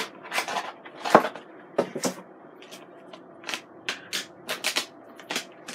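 Paper and cardboard packaging of a dry breading mix rustling as breading is shaken out into a stainless steel bowl: a run of short, irregular rustles.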